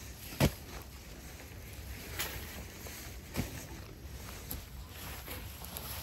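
A shovel working soil: one sharp knock about half a second in, then a few softer knocks and scrapes a second or so apart.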